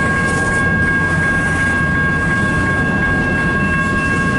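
Double-stack freight cars of a CN train rolling past slowly: a steady low rumble with a continuous high-pitched whine over it.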